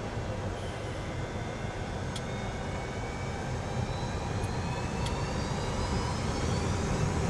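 Boeing 737-200's Pratt & Whitney JT8D turbofans spooling up, heard from inside the cockpit: a steady low rumble with a thin whine that climbs slowly in pitch and grows louder as thrust is advanced for the takeoff roll. A few faint clicks sound over it.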